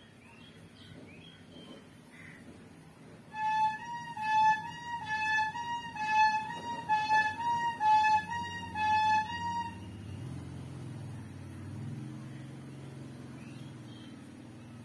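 A short electronic jingle of quick, bright notes alternating between two close pitches, about three notes a second, plays for about six seconds, and is the loudest sound here. A low rumble swells after it stops.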